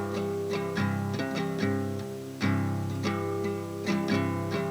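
Acoustic guitar played in a song's instrumental gap between sung lines: chords picked and strummed, each note ringing on into the next.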